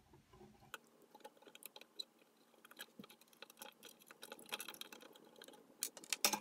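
Faint, scattered small clicks and scrapes of metal tweezers and a soldering-iron tip picking at solder lugs and wire leads, clearing out a burnt resistor that broke in half. The clicks grow busier after about four seconds, with a couple of sharper clicks near the end.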